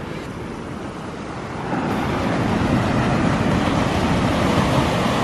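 Steady rushing noise of wind and surf at the shore, growing louder about two seconds in.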